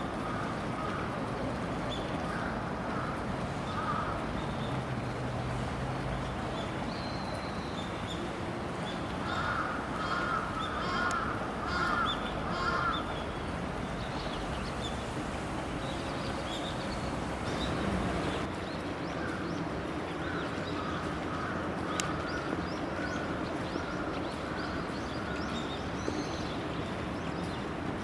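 Crows cawing: scattered caws, with a run of four or five in quick succession about ten seconds in, over a steady background noise. One sharp click comes later.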